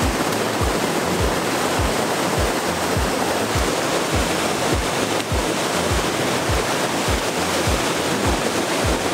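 Rushing water of a shallow rocky stream cascade, with background music laid over it: a deep kick drum thudding steadily about every 0.6 seconds.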